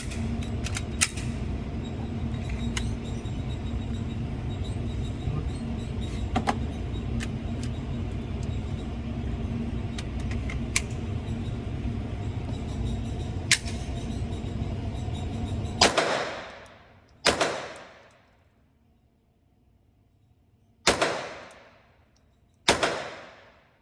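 Four loud .22 rimfire gunshots in the last third, two close together and then, after a pause, another two close together, each ringing out for about a second. Before them there is a steady rumble with a few faint sharp cracks.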